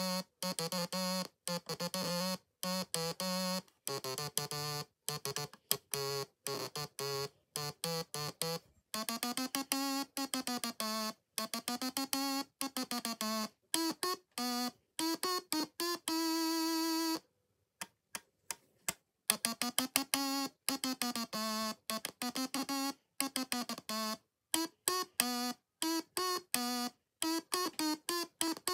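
Stylophone, the small stylus-played synthesizer, playing a tune as a single line of short, clipped notes with tiny silences between them. Some notes slide up and down in pitch about a third of the way in, one note is held longer a little past halfway, and the playing stops for about two seconds before it carries on.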